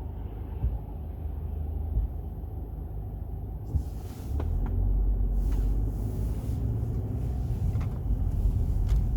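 Mercedes-Benz E-Class with a steady low rumble and a short sharp knock every second or so at irregular intervals: the knocking noise the car has developed. The rumble grows louder about halfway through.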